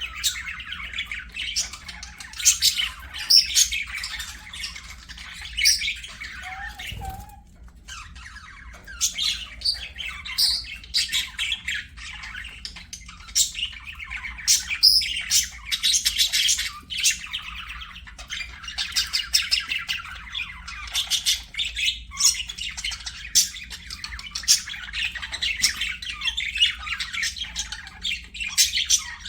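Budgerigars chattering and warbling, a dense run of chirps, squawks and short whistled notes from several birds, with sharp clicks mixed in and a brief lull about seven seconds in.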